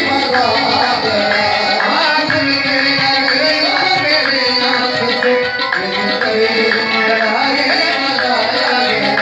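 Live qawwali music: tabla drumming in a steady rhythm under sustained harmonium tones.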